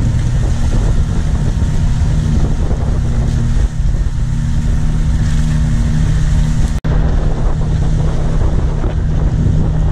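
Boat engine running steadily under way, with wind buffeting the microphone. The sound drops out for an instant about seven seconds in.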